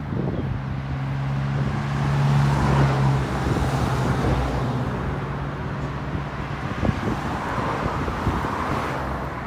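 A motor vehicle engine running with a steady low hum, loudest about two to three seconds in and fading away after about seven seconds, over road traffic noise.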